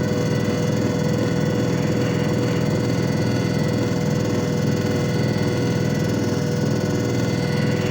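JFJ Easy Pro disc repair machine running steadily: an even motor hum with a steady high-pitched tone and a fast pulsing rumble underneath.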